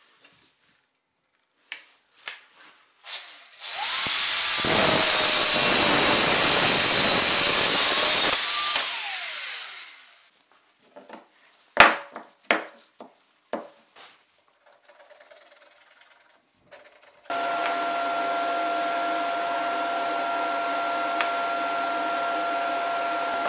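A power tool cuts through a steel bar for about six seconds, its motor note rising as it spins up and falling as it winds down. It is followed by scattered metallic knocks and clanks as the cut piece is handled, one sharp and loud. Near the end a steady hum with a constant tone sets in and runs on.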